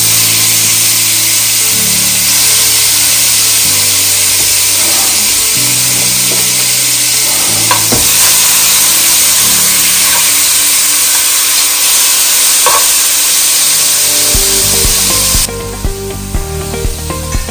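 Seasoned beef chunks sizzling loudly in hot oil in a pot as they sear, with a few knocks of a metal spoon turning them. Background music with low sustained notes plays underneath; the sizzle drops away suddenly near the end, leaving the music with a beat.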